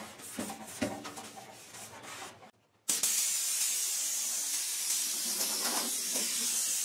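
A paper towel rubbing over bare sheet-steel, then about three seconds in a compressed-air blow gun starts with a sudden, steady hiss, blowing the freshly cleaned fender panel dry.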